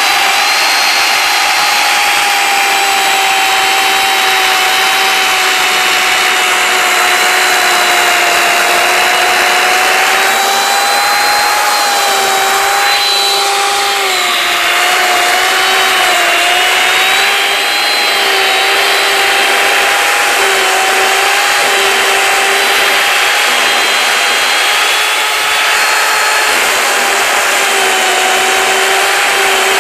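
Corded electric chainsaw running continuously as it cuts slices off a log, a steady motor whine over the rasp of the chain in the wood. Its pitch sags briefly a few times, most clearly about halfway through, as the chain takes the load.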